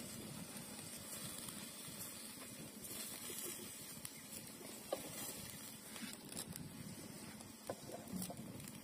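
Wood fire burning in a fire pit under a lidded cast-iron kazan: a faint steady hiss with a few sharp crackles in the second half.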